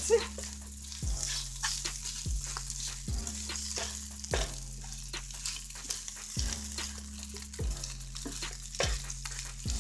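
Diced potatoes, egg and veggie sausage sizzling in a nonstick frying pan while a spatula stirs and scrapes through them. Frequent small clicks and scrapes sit over a steady hiss, with a low hum underneath.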